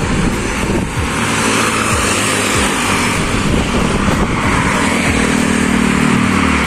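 Steady road noise of a car on the move, with engine and tyre noise. A motorcycle engine passes close by near the end.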